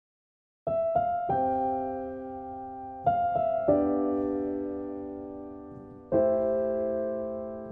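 Slow, gentle piano music starting under a second in: small groups of notes struck together and left to ring and fade, a new chord every few seconds.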